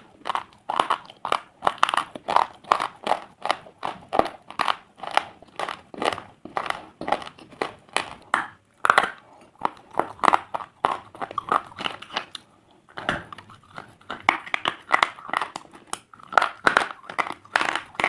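Pieces of slate being crunched up close in a quick, even run of sharp crunches, two to three a second, with a short pause about two-thirds of the way through.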